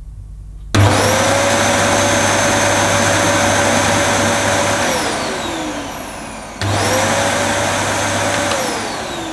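Dyson DC11 canister vacuum motor, running without its cyclone fitted, switched on with a sudden start and a whine that climbs to a steady pitch. After about four seconds it is switched off and winds down with a falling whine. It is switched on again about six and a half seconds in and winds down again near the end, sounding pretty quiet for a Dyson.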